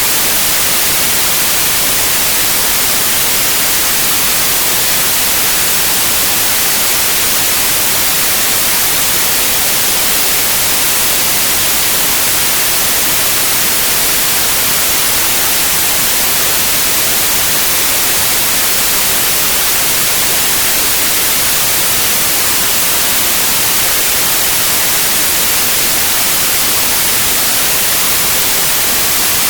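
Synthetic white noise: a steady, even hiss with no changes, strongest in the highs.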